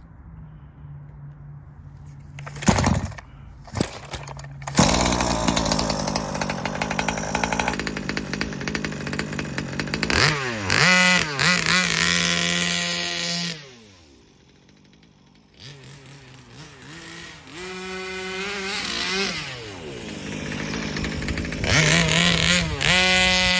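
Small two-stroke gas engine of a Baja 5B RC buggy idling, then revved hard several times, its pitch falling each time the throttle is let off. It dies down for a couple of seconds in the middle, then climbs back up to high revs near the end; a couple of sharp knocks come during the idle a few seconds in.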